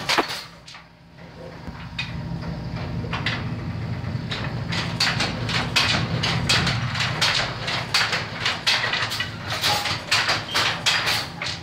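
Handloom with a Jacquard attachment clattering as it is worked, with repeated wooden knocks and clacks of the mechanism and beater, about two a second and thicker in the second half, over a steady low hum.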